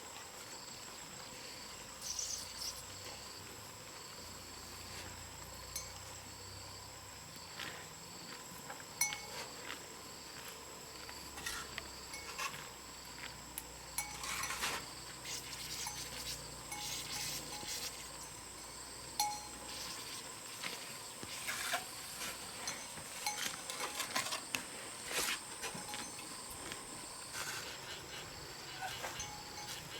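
Insects calling with a steady high-pitched drone, with scattered light clinks and knocks throughout, most frequent in the second half.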